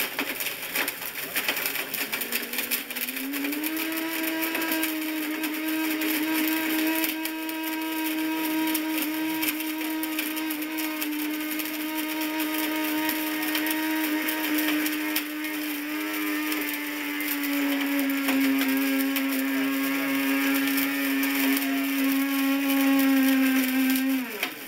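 Blendtec blender motor running at high speed with the pulverised remains of a tape measure rattling and grinding in the jar. Its steady whine climbs in pitch a few seconds in, drops slightly past the middle, and cuts off suddenly near the end as the blender is stopped.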